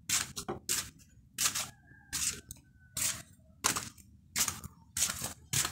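Footsteps: a regular scuffing crunch about every three-quarters of a second, at walking pace, on a gritty floor.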